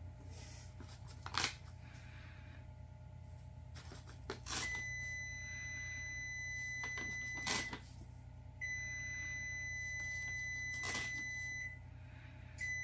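A steady, high electronic beep, each one held about three seconds, sounds three times, with the third starting near the end. Brief crinkling rustles come in between, from wrapping paper being handled.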